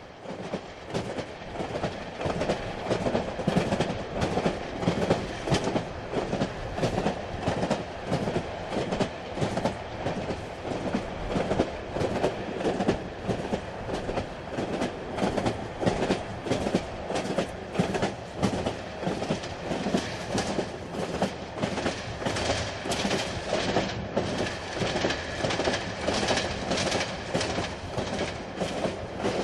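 Inside a moving railway carriage: a steady rumble of the train running, full of frequent clicks and clacks from the wheels on the track, fading in over the first second or two.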